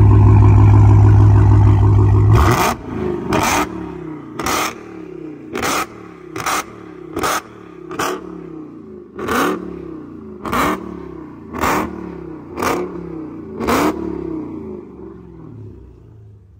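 Supercharged Hellcat Hemi V8 in a Chrysler 300 held at high revs, then let off abruptly about two and a half seconds in. After that the exhaust backfires in about a dozen sharp cracks roughly a second apart, the engine note falling between them, fading toward the end: the car is set up to shoot flames from the exhaust.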